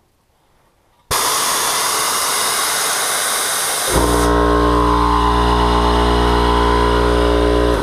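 Old Campbell Hausfeld 5 HP 20-gallon air compressor: a loud hiss of air starts about a second in, then about four seconds in the motor and pump start up with a loud, steady drone and run until they are switched off abruptly near the end.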